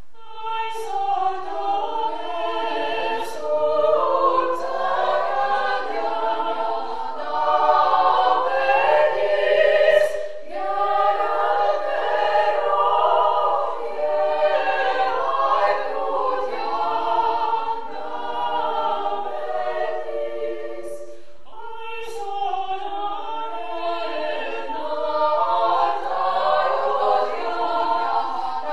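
Women's choir singing a sacred chant a cappella in several parts, pausing briefly twice between phrases.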